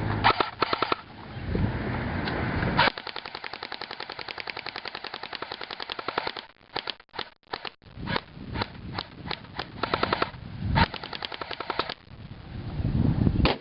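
Airsoft rifles firing: a sustained full-auto burst of about ten shots a second for over three seconds, then scattered single shots and short strings of fire.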